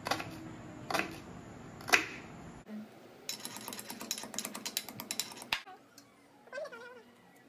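Kitchen knife chopping onions on a wooden cutting board, about one stroke a second. After that comes a fast run of light clicks lasting about two seconds.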